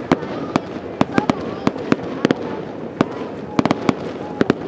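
Fireworks display: a rapid, irregular string of sharp bangs and pops from bursting shells, several a second and bunched in clusters.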